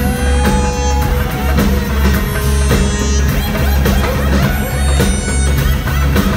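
Loud live band music with a steady pulsing bass beat under sustained pitched notes.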